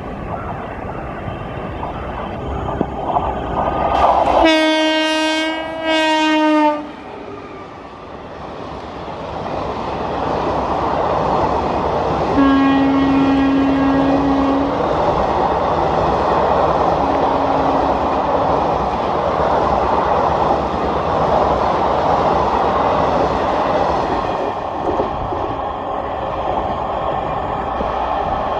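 WAP-4 electric locomotive hauling an express at speed: its horn sounds a long blast and a short one about four seconds in as it approaches, then two lower-pitched blasts about twelve and seventeen seconds in after it has passed. Under and after the horn, the passenger coaches rush by with steady wheel rumble and clickety-clack.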